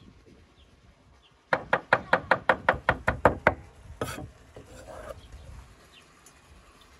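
Steel cleaver chopping fresh herbs on a wooden cutting board: a quick, even run of about a dozen chops, about seven a second, then one more single chop.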